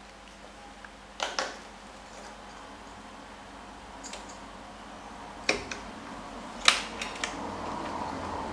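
Sharp clicks and taps of hands and a tool working the CPU cooler's four fastenings loose: a pair of clicks about a second in, two more around the middle, then a loud click followed by two lighter ones.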